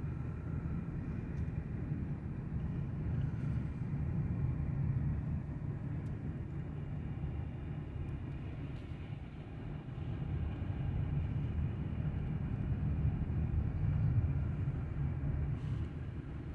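Low, steady rumble of a car's engine and tyres while driving slowly, heard from inside the cabin, swelling a little twice.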